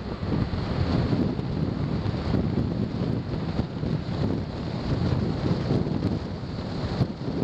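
Ford Scorpio's 1.8 OHC carburettor four-cylinder idling, heard at the tailpipe as a rough, uneven rumble, with the exhaust gusting onto the microphone. The engine smokes heavily, burns oil and idles unevenly, signs of worn piston rings that call for a rebuild.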